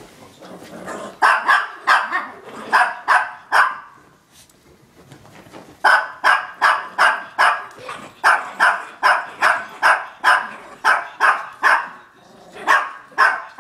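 Yorkshire terrier barking in play: runs of sharp, high yappy barks, about three a second, in three bouts with short pauses between.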